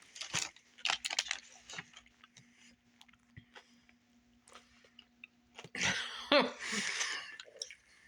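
A person chewing and biting into a sub sandwich stuffed with potato chips, with crisp crunching clicks early on and a louder spell of noisy crunching and mouth sounds around six to seven seconds in.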